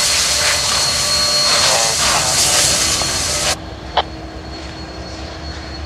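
A loud steady rushing hiss that cuts off abruptly about three and a half seconds in, giving way to a quieter steady drone of locomotives idling, with a low hum and a single sharp click.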